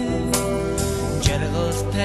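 Background music: sustained instrumental notes with a few percussive hits.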